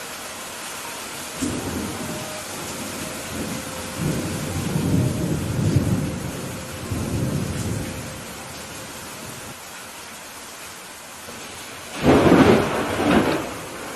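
Steady rain with low thunder rolling in several swells, then a louder, sharper thunderclap about twelve seconds in, rumbling on briefly.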